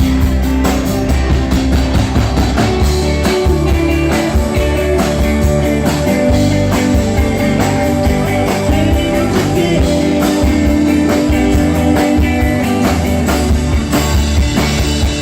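Live rock band playing an instrumental break: electric guitar over bass and drums keeping a steady beat.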